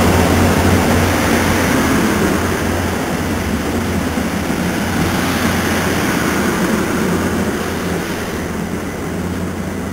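NJ Transit commuter train's coaches rolling along the track past the platform: a steady rumble with a constant low hum, slowly fading as the train moves away.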